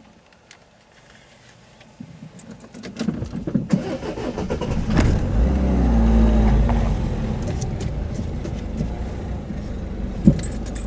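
A road vehicle's engine and tyres close by, building up over a few seconds, loudest about halfway through, then slowly fading.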